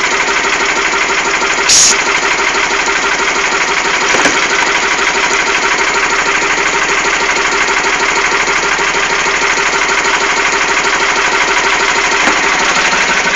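Small fishing boat's engine idling steadily, with one brief loud thump about two seconds in.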